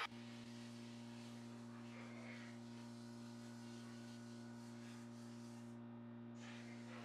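A steady low electrical hum at an even pitch, with no other events.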